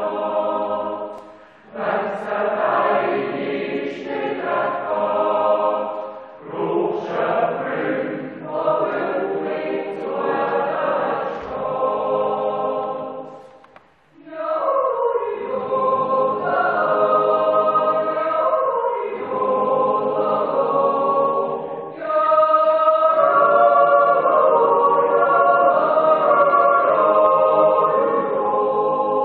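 Mixed Swiss yodel choir of men's and women's voices singing a part-song unaccompanied, in long held phrases with short breaks between them. The singing grows louder in the last third.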